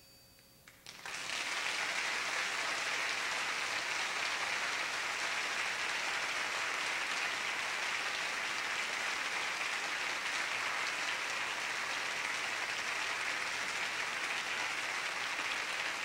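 Theatre audience applauding: after a second of hush, a dense burst of clapping breaks out and keeps up steadily.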